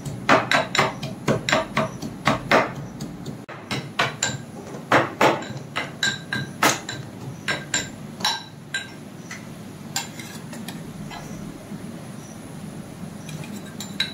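Garlic, ginger and green chillies being pounded with a mortar and pestle: quick repeated strikes with a slight ring on each, about three a second. The strikes pause briefly about three seconds in, then slow and die away around ten seconds in, with a few faint taps near the end.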